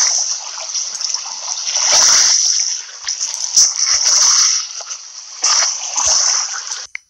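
Small waves washing and splashing over a gravelly pebble shore, rising and falling in surges. The sound cuts off abruptly near the end.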